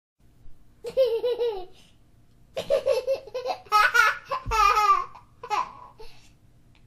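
Small child laughing in high-pitched bursts: a short burst about a second in, then a longer run of quick pulses of laughter, then a last short burst near the end.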